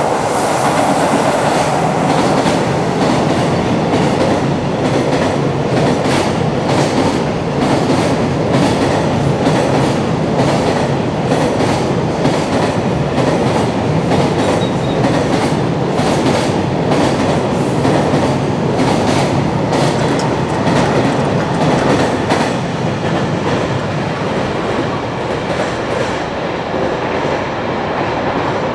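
Freight train running past on an elevated line: a steady loud rush of wheels and wagons, with wheels clacking repeatedly over rail joints, easing off toward the end as the last wagons go by.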